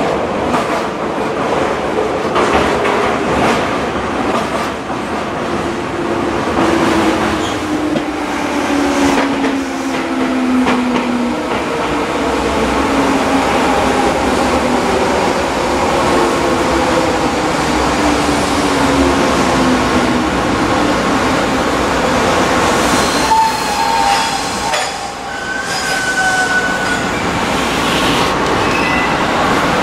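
Running noise inside a Tobu 634-type Skytree Train railcar: wheel rumble and clatter with a whine that falls steadily in pitch as the train slows into a station. Near the end come a few short high squealing tones.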